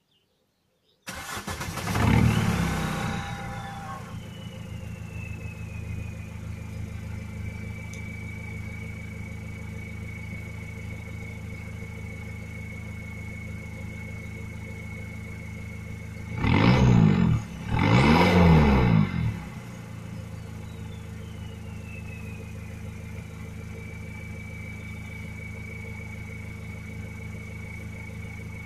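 Vauxhall Astra G 1.7 turbodiesel four-cylinder with a decat and straight-pipe exhaust, heard at the tailpipe. It starts about a second in, flares up and settles to a steady idle with a high whine that falls and then holds. Just past the middle it is revved twice in quick succession, each rev rising and falling, before it drops back to idle.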